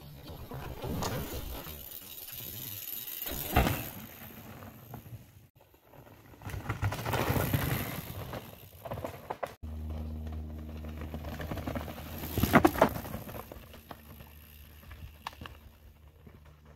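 Mountain bike ridden fast down a dirt forest trail: tyres rumbling on the ground and the bike rattling, swelling and falling, with hard knocks from bumps or landings twice. After an abrupt cut a little past halfway, a steady low hum runs under the riding sound.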